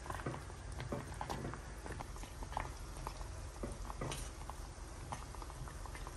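Thick jareesh (crushed-wheat porridge) in a steel pot being stirred with a wooden spoon: irregular wet plops and pops, several a second, as the thick mass bubbles and is worked.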